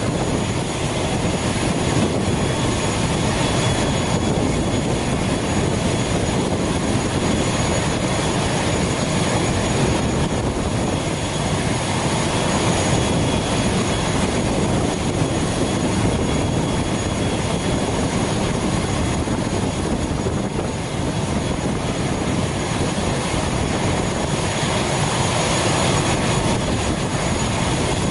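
Steady turbine whine and rumble from a parked ATR 72 turboprop on the apron, with two faint, constant high tones on top.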